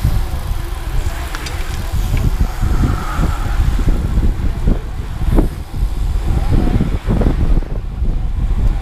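Wind buffeting the microphone of a bicycle-mounted action camera while riding, mixed with tyre and road rumble: a loud, fluttering low rumble.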